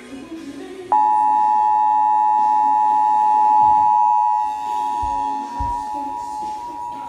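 Emergency Alert System attention signal: the 853 Hz and 960 Hz two-tone alarm sounding together as one steady, harsh tone. It starts sharply about a second in and holds, getting a little quieter about halfway.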